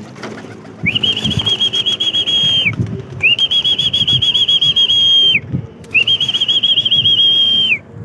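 A person whistling three long, level, warbling whistles, each about two seconds long with short gaps between them. It is a call to pigeons to come into their trap loft.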